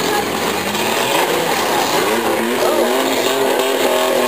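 Several demolition derby minivans and SUVs running and revving on a dirt track, engine pitch rising and falling, over a steady crowd din.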